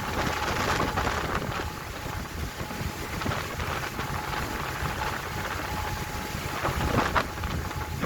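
Wind buffeting the microphone and water splashing on a boat in rough seas, with a low steady rumble and surges of spray, the strongest about seven seconds in.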